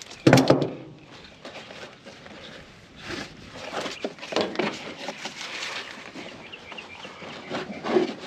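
Footsteps on gravel and the handling of a nylon ratchet strap, irregular small scuffs and clicks, with one brief louder sound just after the start.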